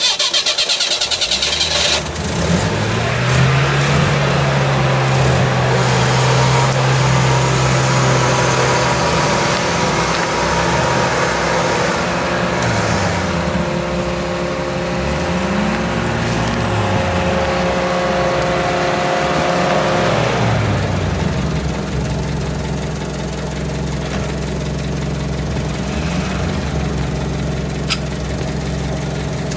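UAZ-469 off-roader's engine running hard while the vehicle is winched out of mud. It rises to raised revs, holds, swings up and down several times, then drops about two-thirds of the way through and settles to a steady idle.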